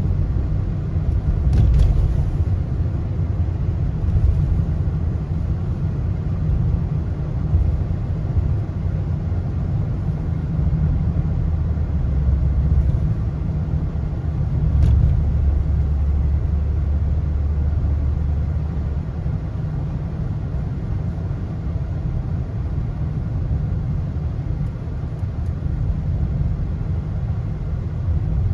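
Steady low rumble of road and engine noise inside a moving car, with a faint click about two seconds in and another about midway.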